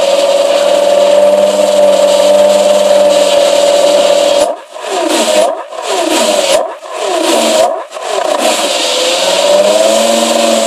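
Porsche Carrera GT's 5.7-litre V10 running steadily through its exhaust. From about halfway in it is revved in several quick throttle blips, about one a second, its pitch falling and climbing with each. It then settles back to a steady run.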